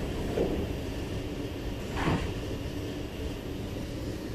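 Steady rumble and hum inside an SMRT C751B train carriage with its doors shut, with a faint knock near the start and a sharper thump about two seconds in.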